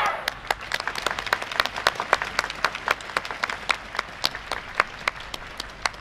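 Audience applauding: many scattered, separate hand claps, welcoming a dance team as it bows after its greeting.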